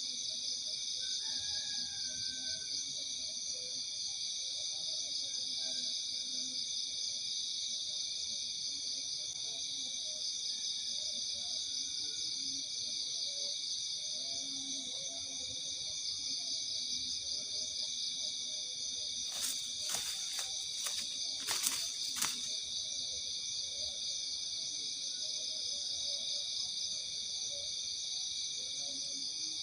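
Steady night chorus of insects, a high shrill trilling in several layered pitches. About twenty seconds in, a short run of sharp clicks or snaps over two to three seconds.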